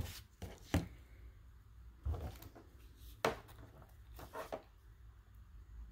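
Scattered short taps and soft rustles of hands handling ribbon flowers and setting them down on a plastic cutting mat.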